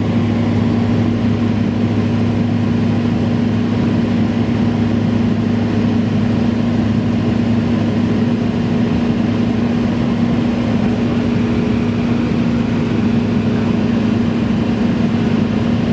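Cessna 172's piston engine and propeller running with an even, steady drone that does not change in pitch or level.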